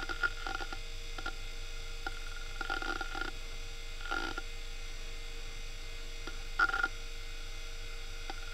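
Western Digital Caviar 21200 hard drive, a unit with many scattered bad sectors, seeking in short bursts of chattering clicks over a steady hum as the computer reads files to open a folder and start a program. The bursts come a few times in the first half, and the loudest comes about two-thirds of the way through.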